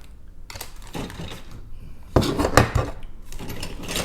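Plastic model kit parts on their sprues being handled and shuffled in the box, rustling with irregular clattering knocks; the loudest cluster of clatters comes about two seconds in.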